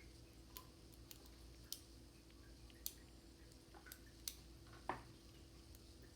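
Faint, sharp clicks of a lock pick and tension wrench working the pin stack of a six-pin Brady 71/40 padlock. The clicks are scattered, about six of them, with the loudest a little under five seconds in.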